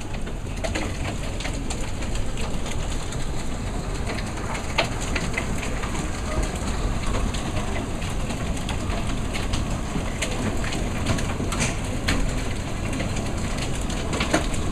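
Heavy hail falling: a steady rush of noise filled with many sharp individual clicks of nickel-sized hailstones striking hard surfaces.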